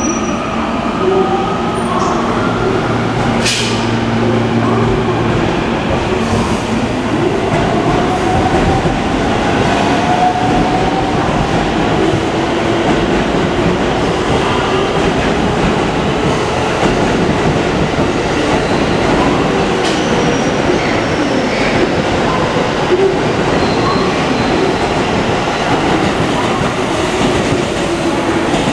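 JR West 223 series electric multiple unit pulling out and accelerating: a steady hum for the first few seconds, then the traction motors' whine climbs slowly in pitch over the rumble and clatter of wheels on rails as the cars go by.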